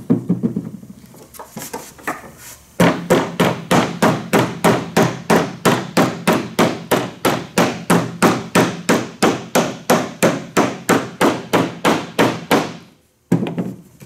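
Rubber mallet knocking a wooden beehive box's beeswax-coated finger joints together. After a short pause it strikes in a quick, even run of about three to four blows a second, then gives one last knock near the end as the side seats.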